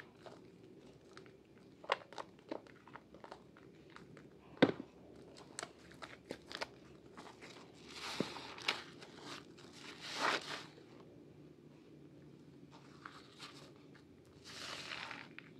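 Wet hands working a bar of soap and a sponge in thick lather: squelching and crackling foam with small clicks. One sharp, loud click comes about a third of the way in, and longer rubbing swishes come in the second half.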